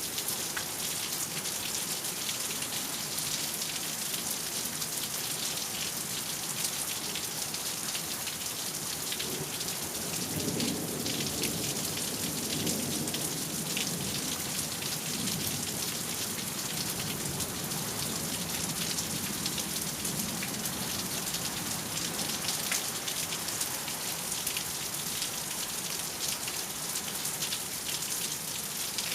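Steady heavy rain falling on surfaces during a thunderstorm, with a low rumble of thunder about a third of the way in that rolls on for several seconds and fades.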